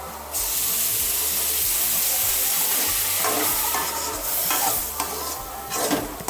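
Food sizzling hard in hot oil in a pan, the sizzle starting suddenly about a third of a second in. In the second half a spatula scrapes and stirs through the pan in several strokes.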